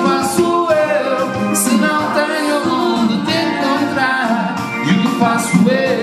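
A song sung live by the guests, voices singing over musical accompaniment.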